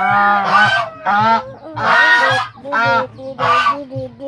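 Domestic goose honking repeatedly, about five loud honks in quick succession.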